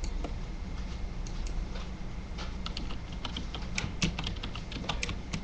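Computer keyboard being typed on: quick, irregular key clicks that start about a second in, over a steady low hum.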